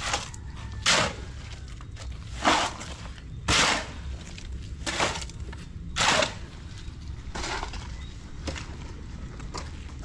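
A small hand tool scraping and scooping gritty concrete mix in and around a bucket, in about seven separate short scrapes one to two seconds apart.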